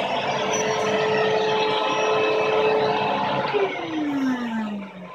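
ShopBot CNC router spindle spinning with a steady whine over a loud whir. About three and a half seconds in, it is switched off and winds down, its pitch falling, and the whir drops away near the end.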